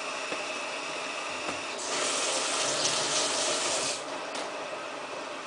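Samsung WF8804RPA washing machine taking in water for its prewash: a steady hiss of inflowing water, rising to a louder rush from about two seconds in until about four seconds in.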